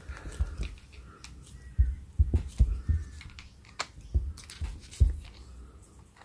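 Slip-joint pliers working the nut and terminal top of an old aluminium-can electrolytic capacitor free of its can, giving irregular sharp metallic clicks with a few faint squeaks between them; the loudest click comes about five seconds in.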